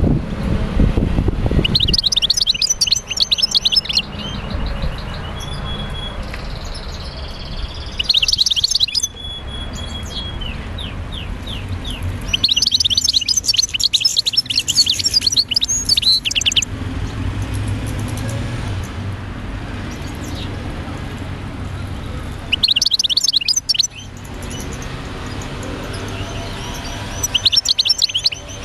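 Birds chirping in repeated bursts of rapid high chirps, each a second to a few seconds long with pauses between, over a steady low rumble.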